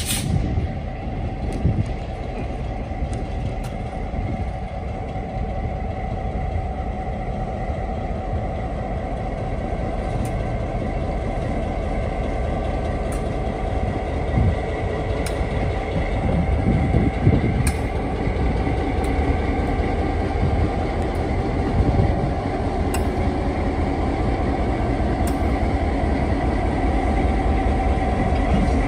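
Diesel locomotive engine running steadily as it pulls passenger coaches along the track, with a few sharp clicks spaced several seconds apart.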